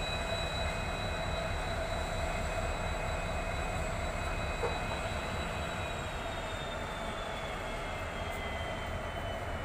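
WAG-7 electric freight locomotive and its wagons on the move: a steady low rumble with a thin high whine that slowly drops in pitch over the second half.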